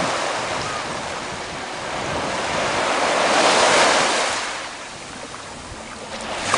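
Ocean surf breaking and washing up on a beach, one wave swelling to a peak about halfway through and then falling away, with wind rushing on the microphone.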